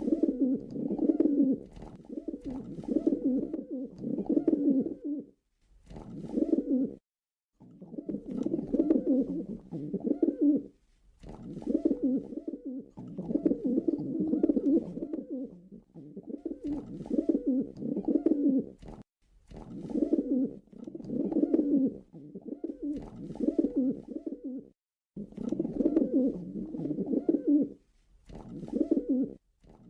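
Pigeon cooing: a run of low, burbling coo phrases, each one to a few seconds long, with short breaks between them.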